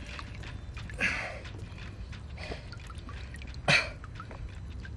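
Water dripping and trickling around a large sturgeon held in the shallows, with many small drip clicks and two short bursts of noise: one about a second in and a sharper, louder one just before the end.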